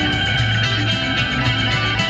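Music with guitar over a steady bass line.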